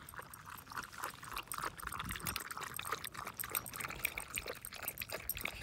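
Two small dogs lapping water from a collapsible silicone bowl: quick, irregular wet laps.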